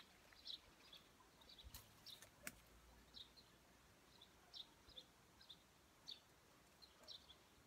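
Faint, high bird chirps, short and repeated every second or so, with a couple of sharp clicks about two seconds in.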